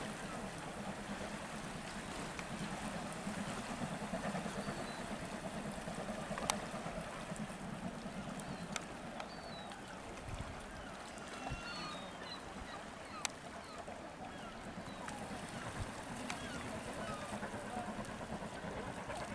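Seaside outdoor ambience: a steady wash of background noise with faint distant voices and a few short high bird chirps, broken by a couple of sharp clicks.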